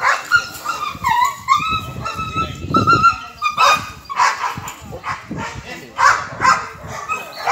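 A dog in protection training whining in high, wavering tones, then barking repeatedly from about halfway through.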